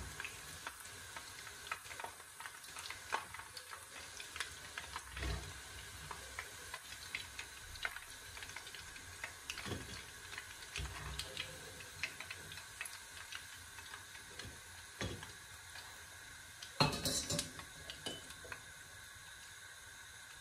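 Battered chicken pieces deep-frying in hot oil with a steady crackling sizzle, and scattered clicks and scrapes of a metal slotted skimmer against the pan as the pieces are lifted out. A louder clatter comes about three-quarters of the way through.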